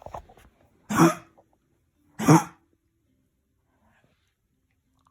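A dog with kennel cough coughing: two short, harsh coughing fits about a second and about two and a quarter seconds in, each lasting about half a second.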